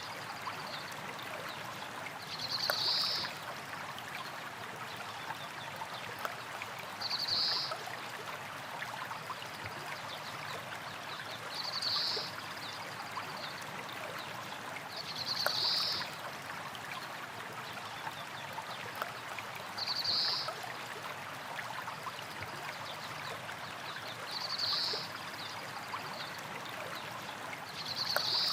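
Small stream of water flowing and trickling over rocks, a steady rush. A short high-pitched sound, the loudest thing heard, recurs about every four to four and a half seconds, seven times in all.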